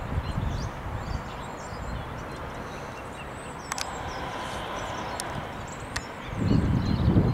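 Wind buffeting the microphone in uneven gusts, loudest near the end, with small birds chirping.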